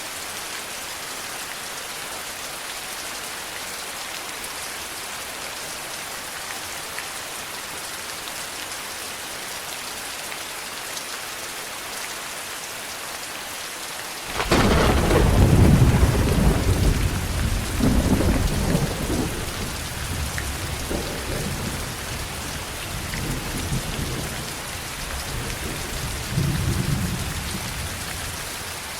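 Steady rain falling, with a clap of thunder breaking in suddenly about halfway through and rolling on in several deep swells that slowly fade.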